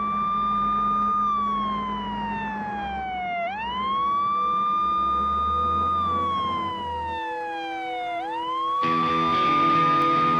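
Fire engine siren wailing. Each cycle climbs quickly to a high held note, then slides slowly down before climbing again, about every five seconds. Music comes in near the end.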